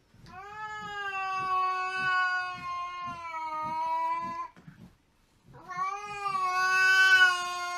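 Cat yowling at another cat: two long, drawn-out calls held at a steady pitch, the first about four seconds long, the second starting about a second after it ends.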